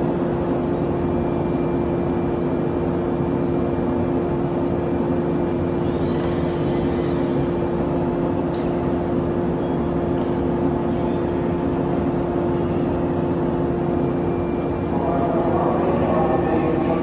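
JR 115 series electric train standing at the platform, its onboard equipment humming steadily with one held tone over a running noise. A voice starts up near the end.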